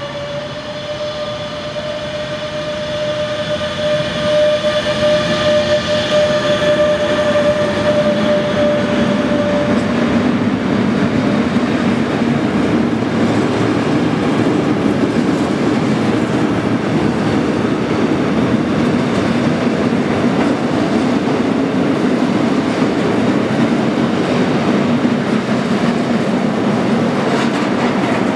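A DB Class 185 electric locomotive passes, hauling a freight train, with a steady whine that fades out about ten seconds in. The rumble and clatter of the loaded flat wagons rolling by then carry on steadily.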